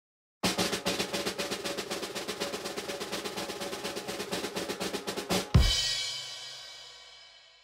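Drum roll sound effect: rapid, even snare-drum strokes for about five seconds, ending in one loud crash that rings and fades away over about two seconds.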